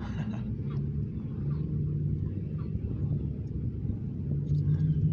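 A steady low rumble with a humming tone that swells twice, the kind a running motor vehicle makes, plus a few faint ticks.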